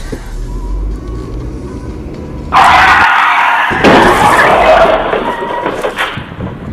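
Car tyres skidding under hard braking, followed about a second later by a loud crash of impact that fades out.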